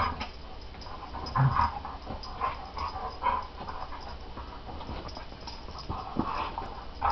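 A Cairn terrier puppy and a golden retriever play-fighting, with a handful of short dog vocal sounds about a second apart. The loudest comes about a second and a half in.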